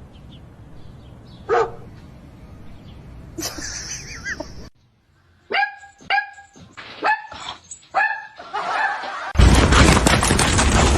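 Pet dog barking: a single bark about a second and a half in, then a run of about five short, sharp barks a few seconds later. Near the end a loud, rough rushing noise takes over.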